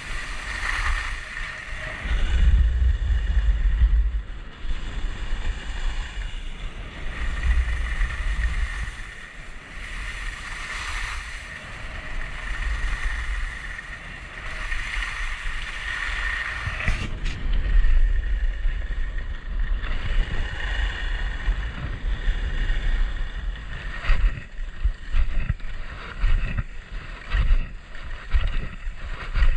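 Wind buffeting an action camera's microphone while skiing downhill, a low rumble that swells and fades, over the hiss of skis sliding on packed snow. Near the end it breaks into short irregular scrapes of skis on the snow.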